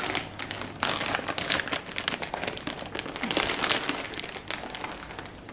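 Thin plastic packaging bags crinkling and rustling as they are handled: a white plastic shopping bag pulled from a grey plastic courier mailer and held open, with dense irregular crackle throughout.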